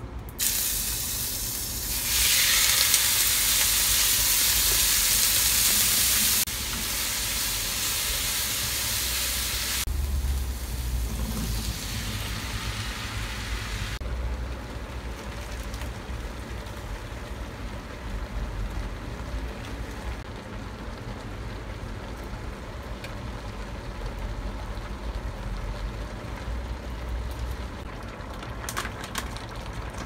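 Sliced pork going into hot oil in a wok and sizzling loudly, the hiss dropping in a few abrupt steps over the first fourteen seconds, then a quieter, steady hiss of the pan cooking.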